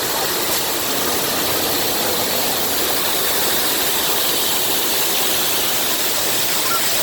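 Steady rushing of water falling down a man-made waterfall fountain.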